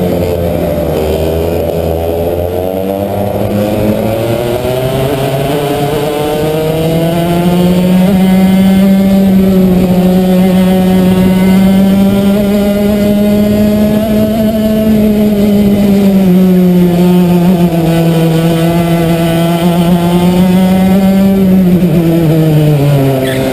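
Racing kart engine heard from the onboard camera. It runs low out of a corner, climbs in pitch over several seconds under full throttle, holds high and steady down the straight, then drops near the end as the driver lifts off for the next corner.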